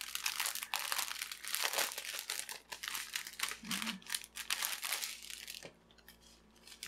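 Clear plastic packaging crinkling and crackling as it is handled: the film wrapped over a diamond painting canvas and small plastic bags of drills. It goes quiet for about a second near the end, then starts again.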